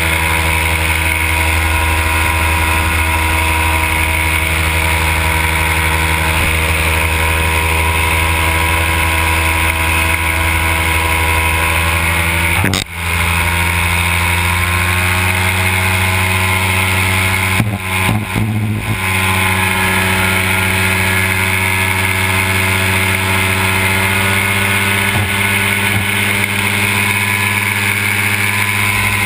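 Simonini two-stroke engine of a Fly Products paramotor running steadily in flight, with a brief dip about 13 seconds in and a few short dropouts around 18 seconds.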